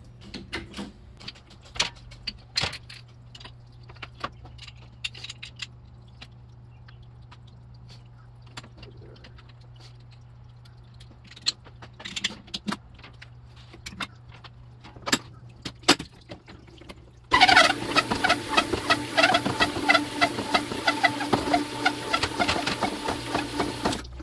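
Over a steady low hum, scattered clicks and knocks of tools being handled. About 17 seconds in, the cylinder honing machine starts its hone turning in the oil-flooded bore of a Yamaha GP1300R two-stroke cylinder: a loud, dense rattling grind that stops just before the end.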